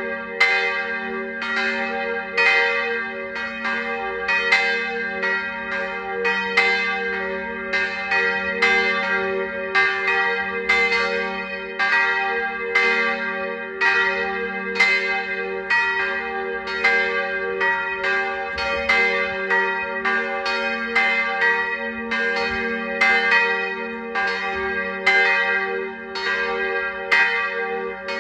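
Church bells swinging and ringing, calling to a service: a continuous run of strikes, about one or two a second, over a lingering hum.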